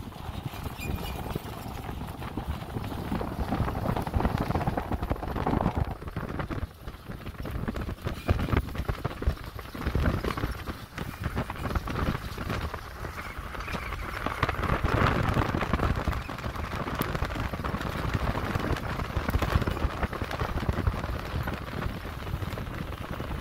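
Wind buffeting the microphone in irregular gusts, over the sound of a Toyota Tacoma pickup driving across a dusty dirt flat. The rumble swells and eases a few times.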